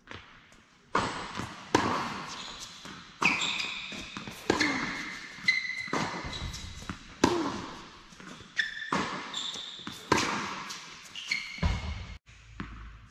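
Tennis rally on an indoor hard court: racquets hitting the ball and the ball bouncing, sharp hits about every second or so that echo in the large hall, with short high squeaks between them.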